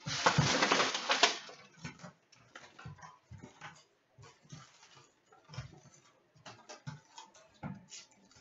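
Plastic shrink-wrap crinkling and tearing off an Upper Deck hockey card box for just over a second. Then comes a run of light clicks and taps as the cardboard box is opened and the foil packs are handled.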